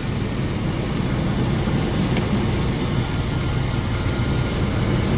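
Chevy V8 engine idling steadily just after a jump start from a portable battery booster pack.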